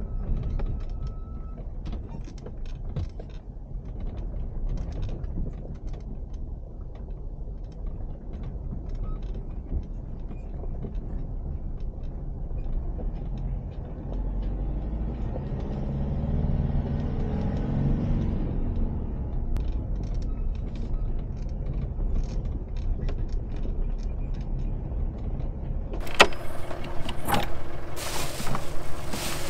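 Mitsubishi L200 pickup driving slowly on a bumpy gravel track, heard from inside the cab: a steady low engine and tyre rumble with small rattles and knocks, the engine note rising and louder for a few seconds past the middle. Near the end, rustling and clatter of plastic bags being handled in the pickup's bed.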